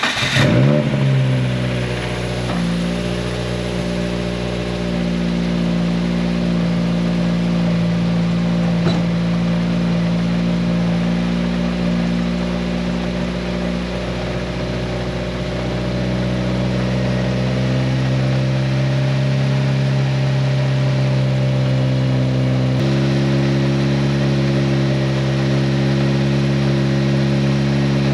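Turbocharged 1.6-litre four-cylinder engine of a B13 Nissan Sentra idling on its first start-up after a transmission swap. The revs settle down over the first couple of seconds, then it idles steadily, and the idle note changes slightly about 23 seconds in.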